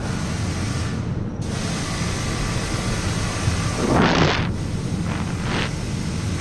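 Pressure-washer jet spraying water onto a car's windscreen and bonnet, rinsing off the soap foam. It is a steady hiss of spray that swells louder for a moment about four seconds in, and again briefly near the end.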